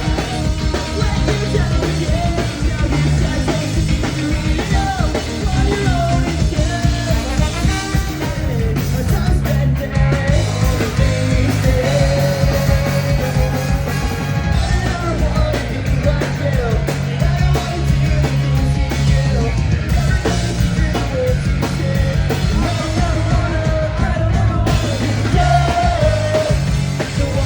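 Ska-punk band playing live at full volume, with singing and shouted vocals over the band.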